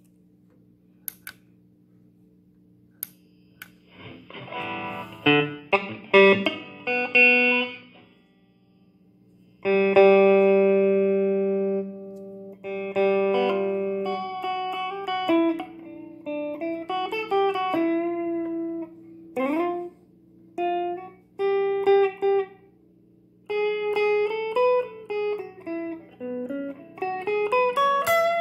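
Electric guitar played through a Valeton Dapper Amp Mini amp-modelling pedal into a small combo amp, over a steady low amp hum. After a few light clicks, strummed chords come in about four seconds in. A long ringing chord follows around ten seconds, then single-note melody lines with sliding, bending notes.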